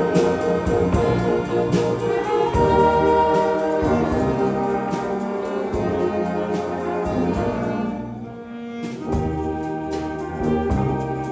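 A concert wind band playing, with brass carrying sustained chords over a steady drum beat. It thins out briefly about eight seconds in.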